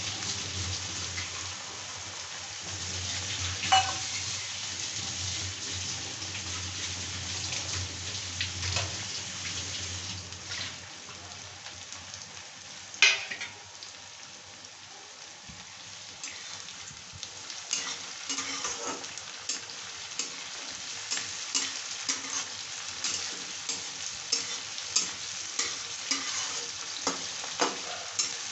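Oil sizzling steadily under chopped onion, garlic, green chilli and tomato frying in a steel kadhai. A steel spatula knocks on the pan a couple of times. From about two-thirds of the way in, it clatters and scrapes quickly as the mixture is stirred.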